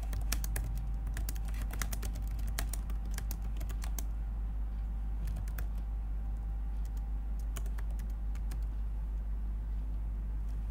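Typing on a computer keyboard: quick runs of key clicks for the first few seconds, then sparser, scattered keystrokes, over a steady low hum.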